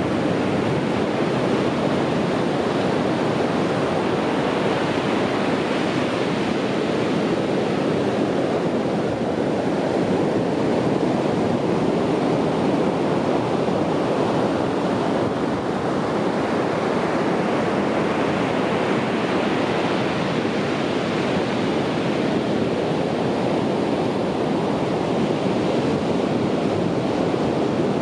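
Sea surf washing on a beach: a continuous rushing of breaking waves that swells twice, about a sixth of the way in and again past the middle, as waves break.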